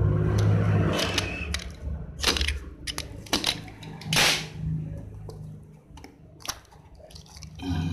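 A cardboard set-top-box carton being handled and opened, its seal broken: a series of sharp clicks and snaps, with one short, louder burst about four seconds in.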